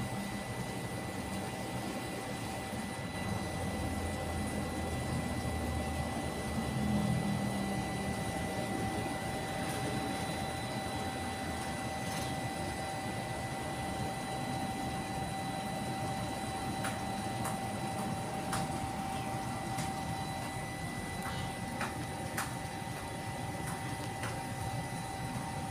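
Steady machine hum with a constant high whine, a low rumble in the first few seconds, and a few faint clicks in the second half.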